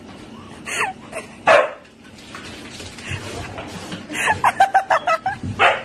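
Husky barking and yipping: a few separate short barks, then a quick run of about six yips a little past the middle, and two more barks near the end.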